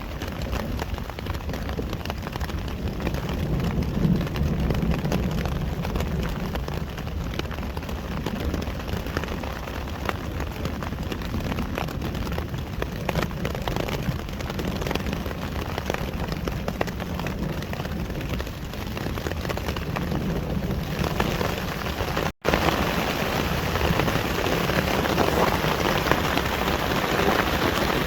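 Heavy rain falling steadily, many drops pattering on a surface, growing louder and hissier after a brief cut about three quarters of the way through.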